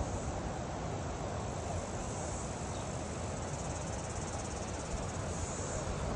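Steady rushing of a waterfall, with insects chirring high above it and swelling twice.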